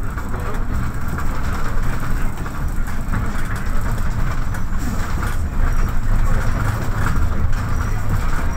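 Inside a MAN NL263 city bus on the move: the diesel engine's steady low drone with road rumble, and a few light knocks from the bodywork.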